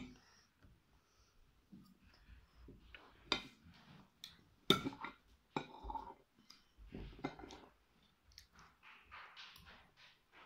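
Metal forks clicking and scraping against plates at irregular moments, with some quiet chewing of lemon slices.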